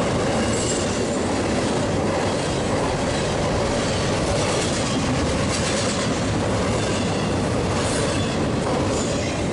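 Double-stack container train of well cars rolling past at close range: a loud, steady rumble and rattle of steel wheels on rail.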